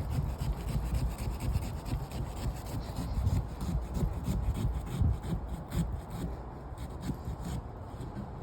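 A pumpkin being cut and worked apart by hand, with many short, irregular scraping strokes against the rind and flesh.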